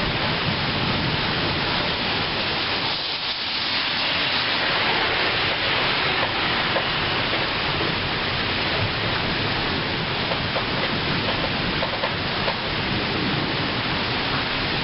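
Heavy rain coming down in a storm, a steady even hiss.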